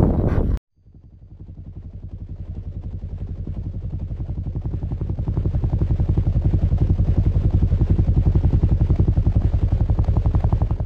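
A voice is cut off abruptly. After a moment of silence comes the end-screen sound: a low, fast, evenly pulsing hum that fades in, swells and holds steady, then starts to fade near the end.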